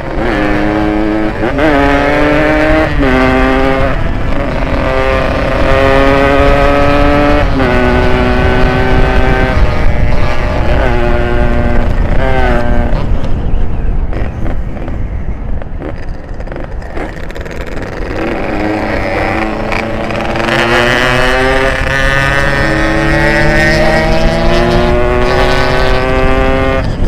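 Ported Yamaha RX-King 135 cc two-stroke single accelerating hard, revs climbing and dropping at each upshift every one to three seconds. Around the middle it eases off, then pulls up through a long gear again, over a steady low rumble of wind and road.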